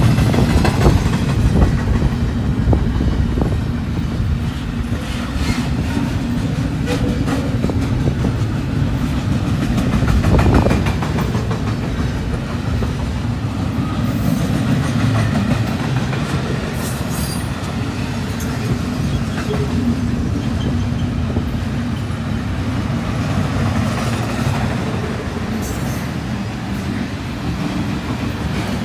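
Double-stack intermodal container train rolling past on well cars: a steady low rumble of steel wheels on the rails, with clickety-clack of the wheels over the track and a louder swell about ten seconds in.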